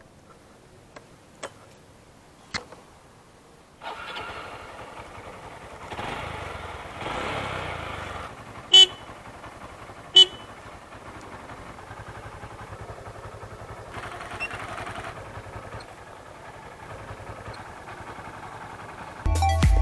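Honda CB110 motorcycle test-run after rewiring: the engine starts about four seconds in and keeps running, and the horn gives two short toots about a second and a half apart, a sign that the newly fitted wire harness works.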